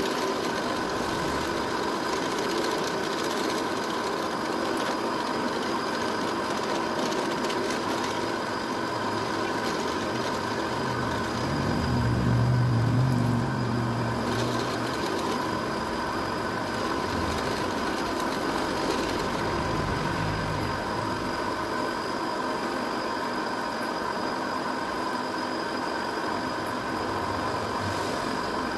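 Drill press motor running steadily while its bit cuts into a white plastic block held in a vise, with a steady whine. About twelve seconds in, a deeper sound swells louder for a couple of seconds, then settles back.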